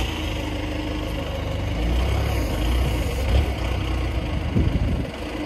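Large hammer mill crusher running and grinding fresh, high-moisture shredded wood into sawdust: a steady deep rumble under a broad hiss, with a few louder surges in the middle and near the end.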